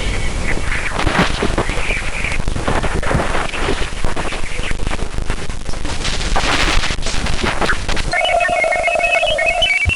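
Sonified radio-wave emissions recorded near Jupiter's moon Ganymede, converted to audio: a crackling, static-like hiss with irregular pops, which about eight seconds in switches abruptly to a steady tone overlaid with stepped, rising chirps.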